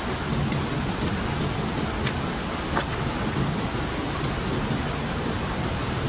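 Heavy rain falling steadily, a constant rushing hiss with a few sharper drop hits close by.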